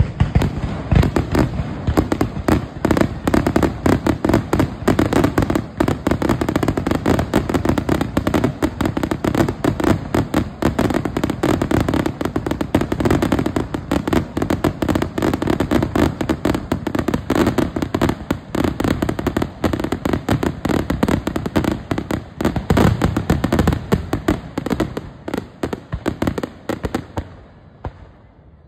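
Fireworks finale barrage: aerial shells bursting in a rapid, unbroken run of bangs, one on top of the next. The bangs thin out and fade near the end.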